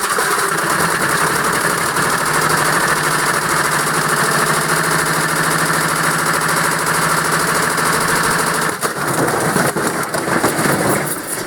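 Beko washing machine running hard on a fast spin: a loud, steady, rattling mechanical clatter over a steady hum. About nine seconds in it breaks into irregular knocks and bangs.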